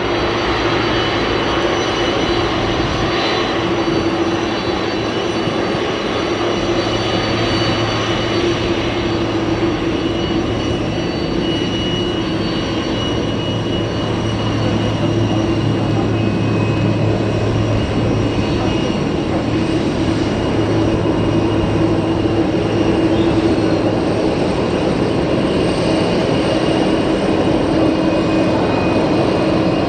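Boeing 747-400F freighter's four turbofan engines running at taxi power: a steady jet whine with several held tones over a rushing hiss and a low hum, growing a little louder in the second half.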